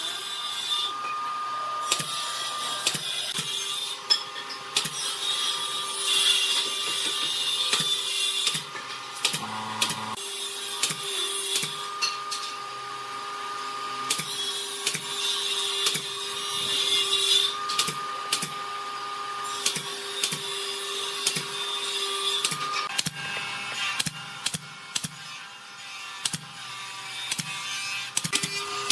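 Pneumatic nail gun firing nails into pallet-wood trim: sharp repeated clacks, sometimes several in quick succession, with pauses between runs. A steady tone runs in the background and drops out now and then.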